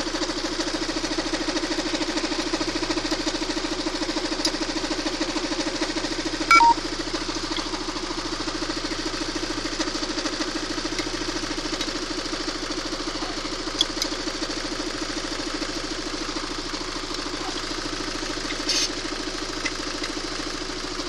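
Car engine idling steadily, the rattle from its timing drive (ГРМ) quieted by a bolt propped against it, so it can barely be heard. A single sharp clank about six and a half seconds in.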